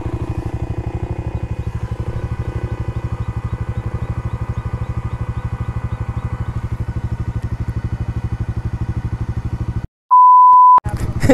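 Bajaj Dominar's single-cylinder engine idling steadily with a fast, even pulse. About ten seconds in, the engine sound cuts off abruptly and a single flat electronic bleep sounds for under a second.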